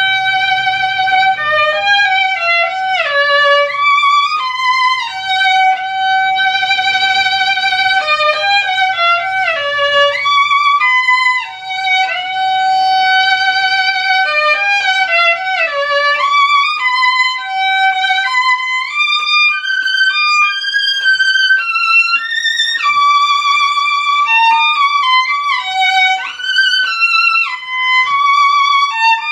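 Music: a solo violin playing a melody, long held notes with vibrato linked by quick runs of shorter notes.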